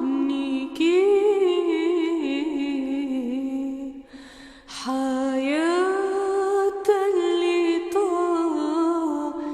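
A woman's solo voice sings a slow Arabic Passion Week lament hymn, drawing out long, ornamented notes without clear words. There is a short break for breath about four seconds in, then a note that slides upward.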